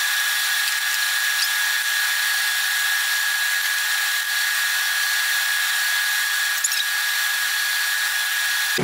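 Fast-forwarded sound of meat frying in hot oil: the sizzle turned into a steady hiss with a steady high whine, ending abruptly.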